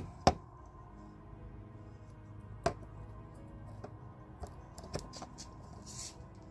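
Sharp clicks and knocks from handling a car's side marker light and its bulb socket, the loudest just after the start and again about 2.7 s in, with lighter taps later, over faint background music.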